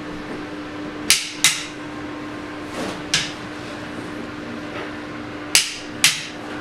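Sharp metallic clicks from hand tools at work on the engine: three pairs of clicks, the two in each pair under half a second apart, over a steady low hum.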